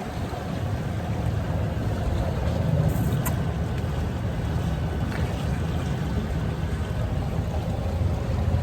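Motorboat running steadily under way, a constant low rumble with a brief click about three seconds in.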